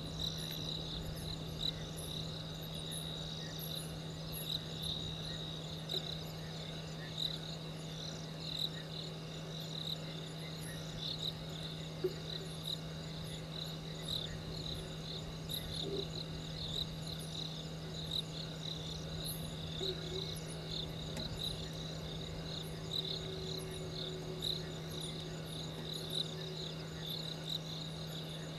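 Night insect chorus of crickets, a steady stream of rapid pulsed chirps, with a steady low hum underneath.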